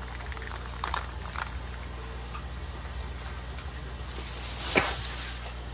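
A few light clicks and a short rustle from small plastic model train cars being handled, the loudest near the end, over a steady low electrical hum.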